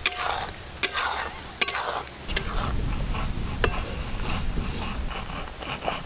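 Flat metal spatula stirring thick boiling mango pulp in an aluminium pan, with sharp knocks of the spatula against the pan now and then.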